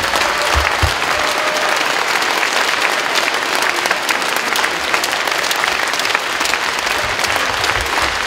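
Large crowd applauding steadily: many hands clapping together in a dense, even patter.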